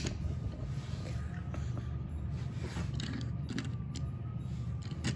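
Die-cast Hot Wheels Dodge Van toy being rolled along a wooden tabletop: a low, steady rolling rumble of its small wheels, with a few light clicks of handling.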